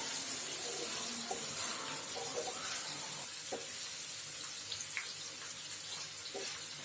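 Hot oil sizzling steadily in a pan as boiled potato pieces go in, with a few light taps and clicks.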